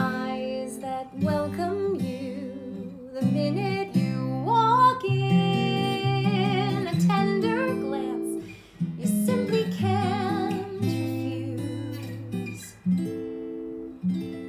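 A woman singing a gentle song, holding notes with vibrato, over a pre-recorded acoustic guitar accompaniment.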